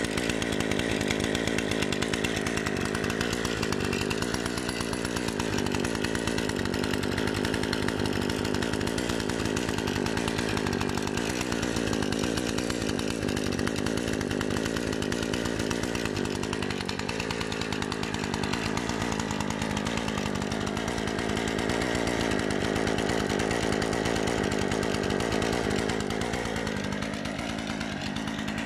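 Husqvarna 135 X-Torq chainsaw's two-stroke engine idling steadily, running unattended on the ground with the chain at rest.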